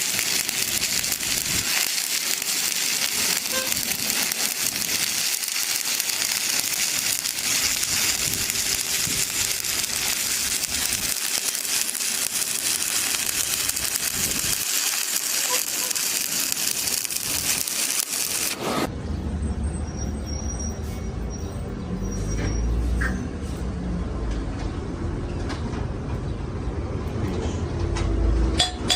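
Stick (SMAW) welding arc crackling and hissing steadily while a bead is run on plate. About two-thirds of the way through it cuts off suddenly, giving way to a low rumble.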